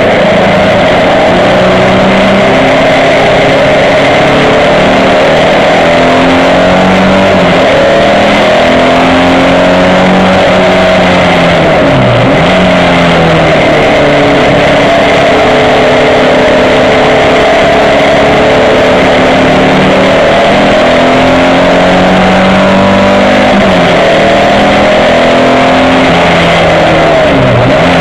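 Race car's engine running hard, heard from inside the cabin. Its pitch climbs and falls repeatedly, with two sharp dips, one about twelve seconds in and one near the end.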